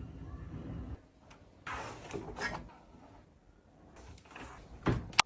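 Intermittent short scraping and rubbing sounds with a few light knocks, and a sharper knock near the end: hands handling and scrubbing washing-machine parts.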